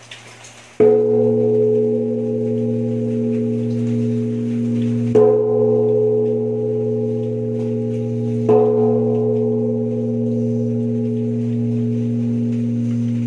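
A newly cast 400 kg Huế bronze temple bell struck three times, a few seconds apart. Each stroke sets off a long, deep ring of several tones over a low hum, overlapping into the next and still sounding at the end.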